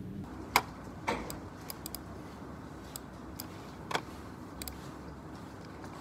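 Scattered light clicks at a computer desk, a keyboard and mouse being handled, about a dozen irregular taps over quiet room tone.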